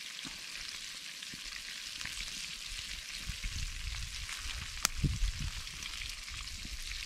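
Fish pieces frying in oil in a small pan over a wood fire: a steady sizzle, with one sharp click about five seconds in.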